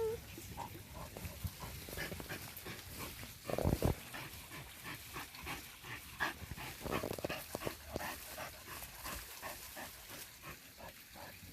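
Dogs digging at a burrow, claws scratching and tossing dirt in many short strokes, with a dog panting and giving small whines. There is a louder thump about three and a half seconds in.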